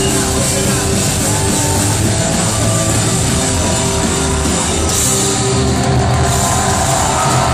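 Rock band playing live and loud, with electric guitar and drums.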